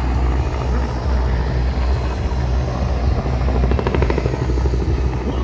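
Helicopter flying past, a steady loud low drone of rotor and engine, with the fast beat of the rotor blades standing out about four seconds in.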